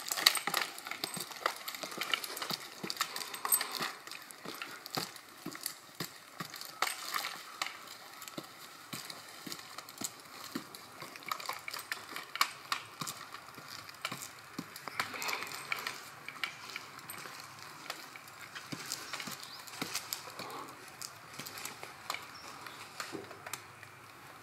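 Irregular light clicks and clinks over a faint hiss, a few sharper than the rest.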